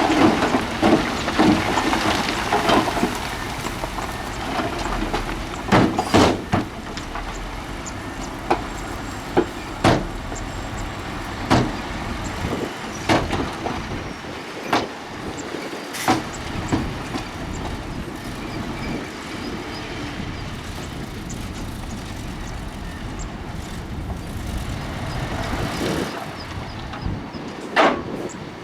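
Heavy earthmoving machinery running, loudest for the first few seconds. Sharp clanks and knocks of metal and rock come at irregular intervals over the steady engine noise.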